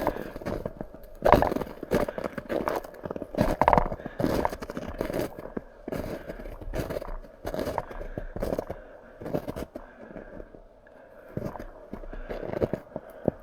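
Footsteps crunching through snow, an uneven run of crunches about one or two a second.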